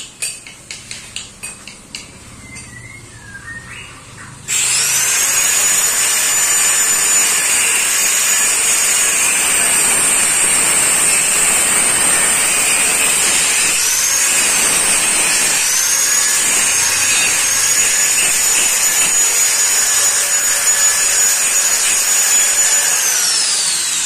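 A few light metal taps, then a handheld angle grinder starts about four and a half seconds in and cuts steel, running with a steady high whine. Its pitch dips briefly under load around the middle, and it begins to wind down right at the end.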